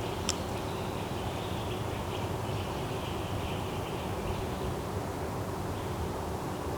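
Forest ambience: a steady low rumble under faint high chirping, with one brief sharp high click about a third of a second in.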